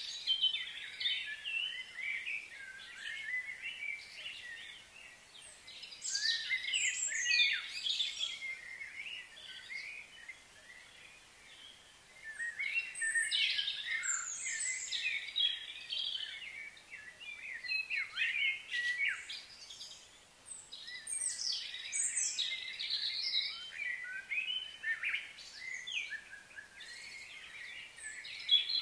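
Birds chirping and calling in quick, overlapping high notes, coming in bursts with a quieter lull about a third of the way in.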